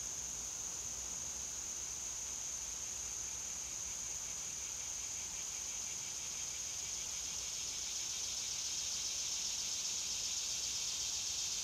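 Steady chorus of insects in the trees, a continuous high-pitched buzz that grows louder about eight seconds in.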